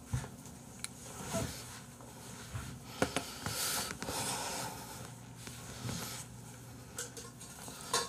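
A person sitting down and settling into a padded desk chair: scattered rustling and shuffling with a few sharp knocks, the loudest knock about three seconds in.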